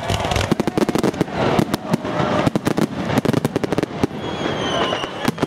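Fireworks going off in quick succession, a dense run of sharp bangs and crackles. Near the end a high thin whistle from a whistling firework sounds over them.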